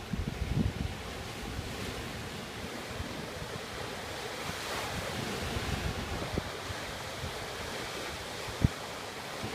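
Sea waves breaking and washing, with wind buffeting the microphone. The surf swells about halfway through, and a single short thump comes near the end.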